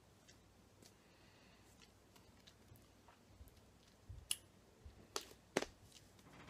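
Quiet room tone with scattered small clicks and taps, a few sharper ones in the second half: mouth and hand noises from a person signing in ASL without voice.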